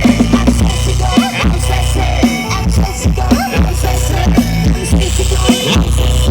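Loud music with heavy, sustained bass and a sung or rapped vocal, played through a Badan Brand rot hae sound-system truck. The bass drops out briefly several times.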